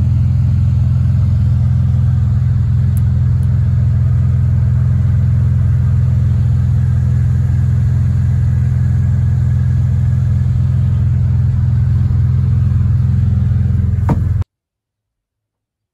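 A loud, steady low rumble that cuts off suddenly near the end.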